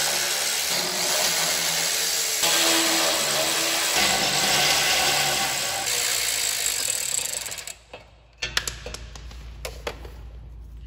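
DeWalt Atomic brushless cordless ratchet running, backing out bolts, for about eight seconds with its pitch shifting a couple of times, then stopping suddenly. A few light clicks follow.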